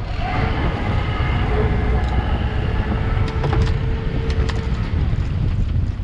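Strong wind buffeting the microphone aboard a small fishing boat, a continuous rumble. Under it, a faint steady whine and a few light clicks come in over the first few seconds and die away.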